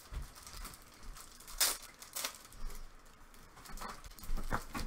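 Clear plastic baggies being handled, rustling and crinkling in short bursts, with a couple of sharper crackles about a second and a half and two seconds in and more near the end.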